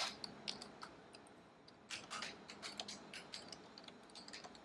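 Faint computer keyboard typing: a run of quiet, irregular key clicks, coming thicker from about two seconds in.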